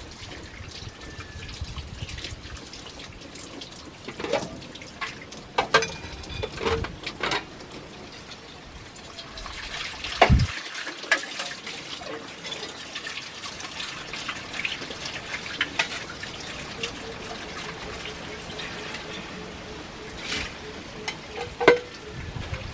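Tap water running into a metal kitchen sink while eggs and dishes are rinsed, with scattered clinks and knocks, the loudest a sharp knock about ten seconds in.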